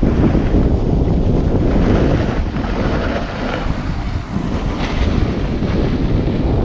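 Wind buffeting a GoPro's microphone as the camera rides down a ski slope at speed: a loud, steady, low rumbling noise.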